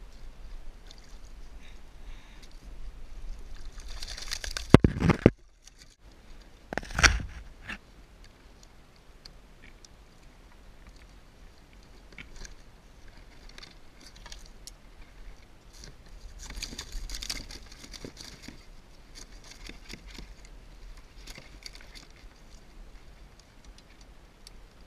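Lobster hoop-net gear being handled on a kayak: scattered clicks and rustling, with a loud clatter of knocks about five seconds in and another sharp knock about two seconds later.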